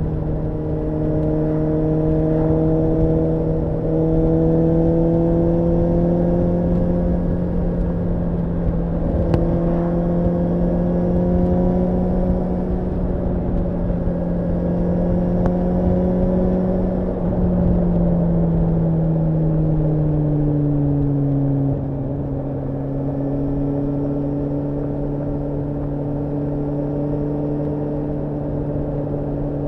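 Suzuki GSR750's inline-four engine running at a steady cruise under the rider. About two-thirds of the way through its note falls over a few seconds, then settles on a lower, slightly quieter steady note.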